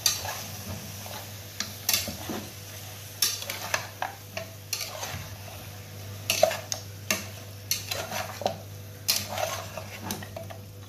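Metal spatula scraping and knocking against the inside of a pressure cooker as beef pieces and ginger-garlic paste are stirred and fried in oil, with a light sizzle. The scrapes come irregularly, a few a second.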